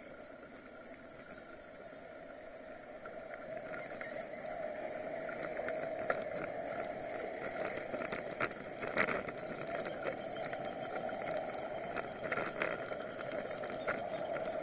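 Riding noise of a bicycle on asphalt, heard from a camera mounted on the bike: a steady hum that grows louder over the first few seconds as the bike picks up speed, with scattered clicks and rattles.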